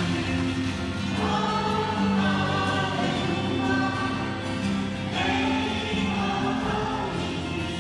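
A Hawaiian hula song sung by a group of voices, with long held notes that change about once a second.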